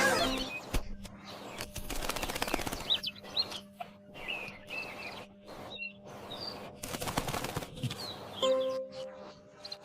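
Farmyard birds, likely chickens: scattered short high chirps with rustling, wing-flapping noises, over faint music.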